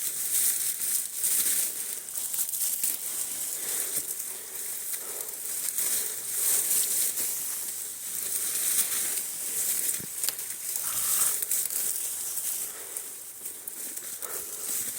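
Leaves, brush and broken branches rustling and crackling irregularly as someone pushes through them on foot.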